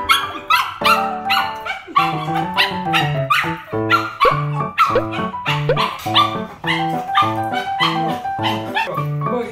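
Small dog barking and yipping in quick repeated bursts, excited at greeting a person. Background music with a steady beat plays under it.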